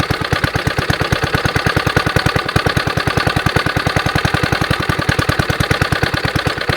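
Small single-cylinder Suffolk engine, its valves freshly lapped, idling evenly off the choke. It beats steadily at about ten pulses a second.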